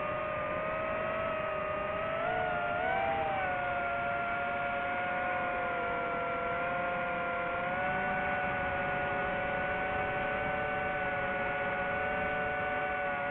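DJI FPV quadcopter's four motors whining in flight: a steady chord of several pitches that wavers and shifts slightly upward about two to three seconds in, then holds.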